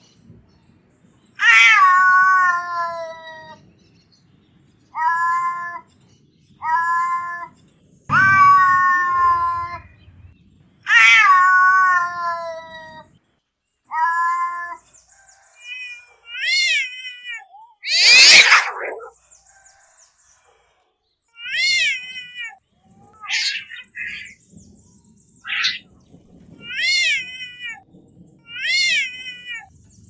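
Domestic cats meowing and yowling in a run of separate calls. Several long, wavering yowls fall in pitch in the first half. Shorter, higher meows rise and fall after that, with one harsh, noisy outburst about halfway through.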